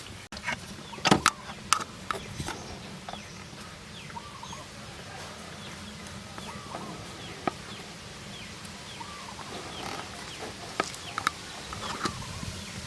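Birds calling in short, repeated arched calls, with a few sharp clicks about a second in.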